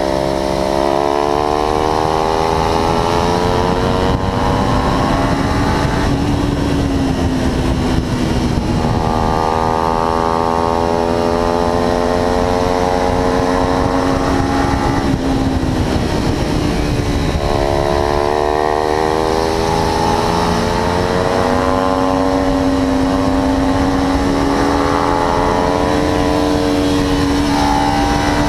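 Kawasaki Ninja 300's parallel-twin engine heard from onboard at speed, its note climbing as it pulls through the revs, then dropping and climbing again several times with gear changes and corner entries, over a steady rush of wind and road noise.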